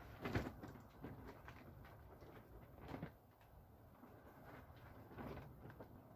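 Mostly quiet, with a few soft rustles and knocks from hand-sowing seed into a soil furrow: the clearest about half a second in, others near three seconds and around five seconds.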